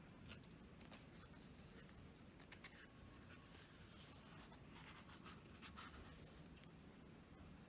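Near silence with a few faint paper rustles and light clicks as the pages of a thick photobook are turned.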